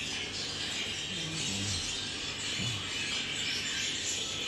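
A flock of budgerigars chattering steadily, a continuous high twittering.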